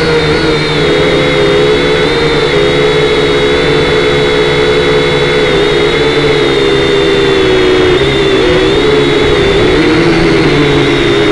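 Syma X5C quadcopter's small electric motors and propellers whining steadily, heard close up through the drone's onboard camera. The pitch wavers slightly up and down as the motor speeds are adjusted in flight.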